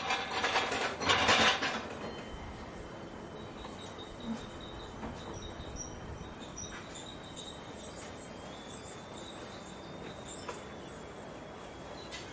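Metal clanking and rattling of a steel engine hoist being handled, dying away about two seconds in, followed by faint rapid high-pitched chirping.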